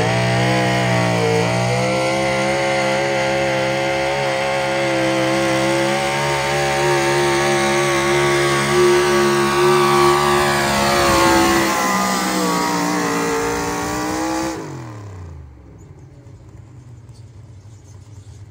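Engine of a pulling vehicle running hard at high revs, holding a steady pitch through a pull. About fifteen seconds in, the revs fall away quickly and the engine winds down.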